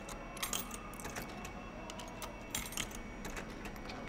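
Keys jingling and clicking against the metal lock and handle of a vending machine door, in a few short clusters of metallic clinks.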